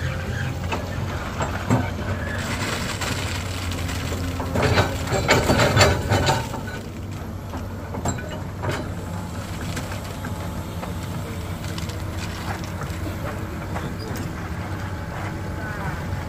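Truck engine running with a steady low rumble, louder for the first six seconds or so, with a burst of clattering knocks about four to six seconds in; after that the engine sound drops to a quieter steady rumble.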